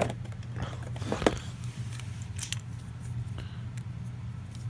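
Sharp clicks and light rattles of a plastic-handled screwdriver being worked out of a moulded plastic tool-kit tray and handled, the loudest click a little over a second in, over a low steady hum.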